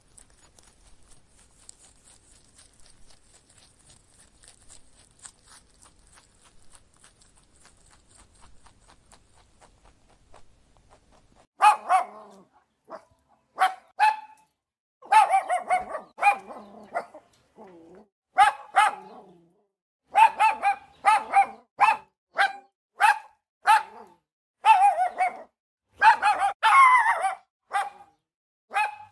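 A dog barking over and over in short, sharp barks, starting about halfway through after a quiet stretch of faint hiss and light ticking.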